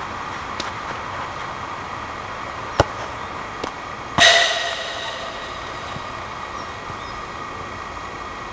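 A football is kicked hard with a sharp smack about three seconds in. About a second later comes a loud clang as it slams into the metal mesh fence behind the goal, the metal ringing for about a second as it dies away.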